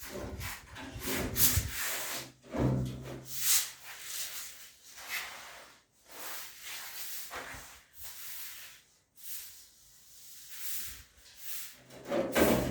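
Irregular scraping strokes, roughly one a second with short pauses, and a low steady hum that comes in twice.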